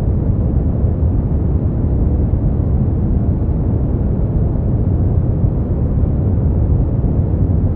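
Steady brown noise: an even, deep rumbling hiss, strongest in the bass and falling away in the treble, unchanging throughout.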